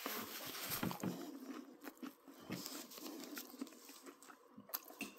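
A person chewing a mouthful of crescent-roll pizza snack, with soft mouth noises and scattered small clicks.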